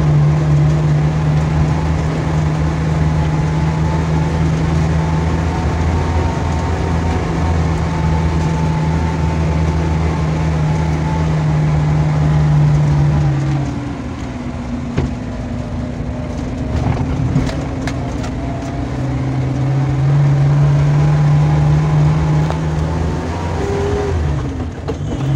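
Daihatsu Zebra's engine running as the van drives along, heard from inside the cab. The steady engine hum drops away about halfway through and comes back strongly about three-quarters of the way through.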